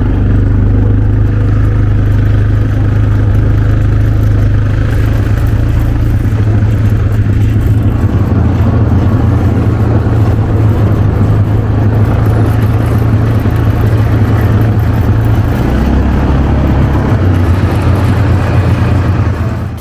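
ATV engine running steadily under way, a loud low drone with rough noise over it; its pitch shifts briefly about three-quarters of the way through.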